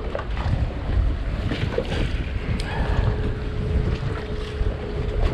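Strong wind buffeting the microphone in uneven low rumbling gusts. A faint steady hum comes in about halfway through.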